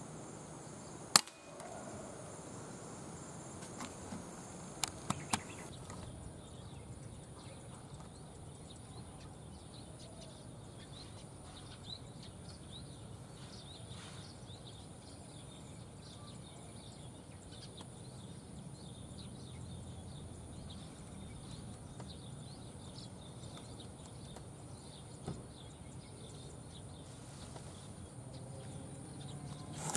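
A single sharp air rifle shot about a second in, over steady cricket chirping. A few faint clicks follow about four seconds later, and the rest is a faint rural outdoor background.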